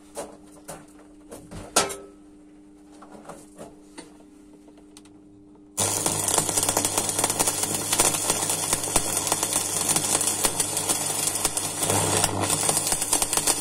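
Stick (shielded metal arc) welding. First a few light clicks and knocks as the coated electrode is handled in its holder, over a steady low hum. About six seconds in, the arc strikes and a loud, dense crackling sizzle starts suddenly and runs on with a low buzz underneath.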